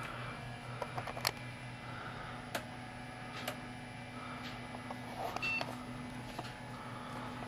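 Desktop PC powering up for its first boot with a newly fitted graphics card: a steady fan hum under a few sharp clicks, and a short high beep about five and a half seconds in.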